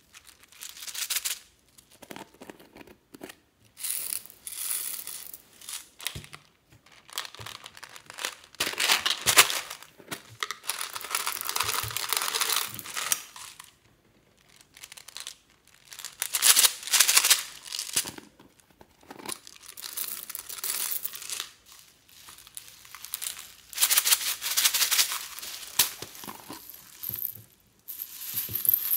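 Small plastic beads poured from clear plastic tubes into a plastic tray full of beads, rattling in bursts of a second or a few seconds with short pauses between. A louder, brighter pour starts near the end.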